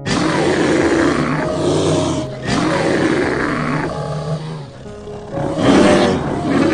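A large animal roaring in three rough, loud stretches, the first starting abruptly, over background music.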